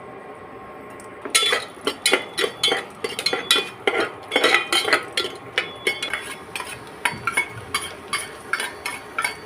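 A metal utensil stirring food in a cooking pan, clanking against the pan's side in quick, irregular strikes, about two to three a second, starting about a second in.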